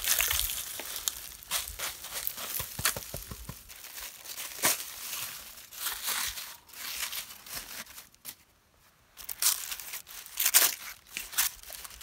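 Hardened clay crust around a fire-baked joint of meat being cracked and broken open: irregular sharp crunching cracks and crumbling, with a brief lull about eight seconds in and louder cracks after it.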